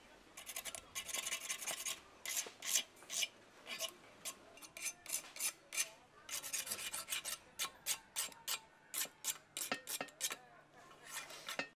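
Metal tool scraping old silicone sealant off the flange of an Isuzu 4JB1 exhaust manifold in short, quick strokes, about two or three a second.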